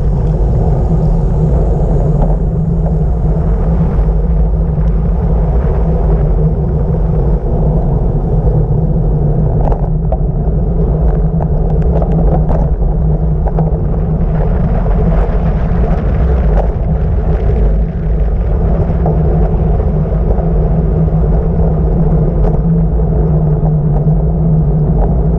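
Steady, loud wind rush buffeting the microphone of a handlebar-mounted camera during a fast downhill ride on asphalt, a deep rumble with tyre noise on the road beneath it.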